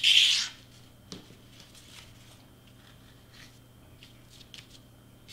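A short rasping rub as the tip of a glue bottle is drawn along foam board, laying a line of glue. Then faint scattered rustles and ticks as crepe-paper streamers are pressed down by hand.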